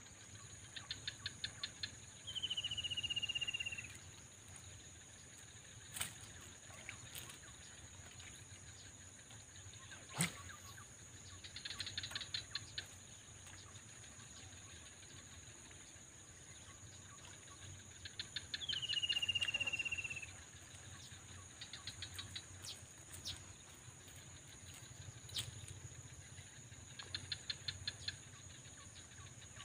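A casting reel's spool whirring as the lure is cast: a high whine falling slightly in pitch over about a second and a half, heard twice, about sixteen seconds apart. Between the casts come short bursts of rapid clicking and a few sharp single ticks.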